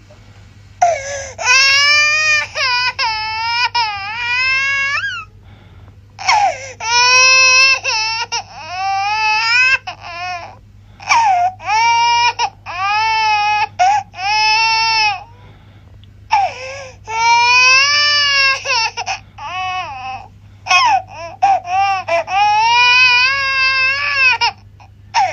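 Baby crying sound effect: a long run of loud, high-pitched wails, each a second or two long, rising and falling in pitch, with short gaps for breath between them.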